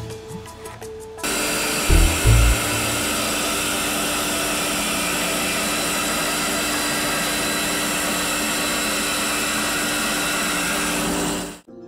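Bandsaw cutting a curve in a wooden board: a steady whirring saw noise with a constant motor hum, starting about a second in, with two low thumps shortly after. It cuts off abruptly near the end.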